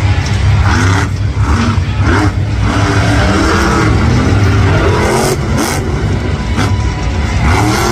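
Megalodon monster truck's supercharged V8 engine revving up and down several times as the truck drives across the dirt track.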